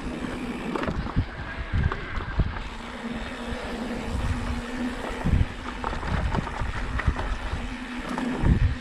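Wind buffeting the microphone and knobby tyres running over a dry dirt trail, with frequent knocks and rattles from a Specialized Turbo Levo electric mountain bike going over bumps. Under it runs a steady hum from the e-bike's pedal-assist motor, which fades out about five and a half seconds in.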